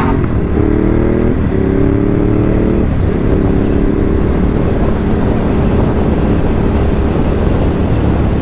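Ducati Hypermotard 950's L-twin engine pulling away under way, its note broken by three quick gear changes in the first three seconds, then running at a steady pitch over a constant rush of wind.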